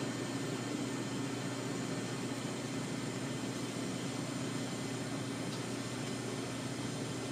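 TIG welding arc on aluminium, burning steadily under foot-pedal control: an even hum with a hiss over it that does not change.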